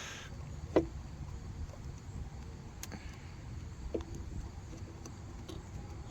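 A few faint clicks and light knocks of hands working a new rubber gasket onto a plastic oil filter housing cap, over a low steady rumble.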